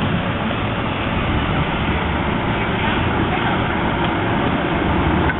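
Steady rumbling outdoor street noise, with faint voices in it.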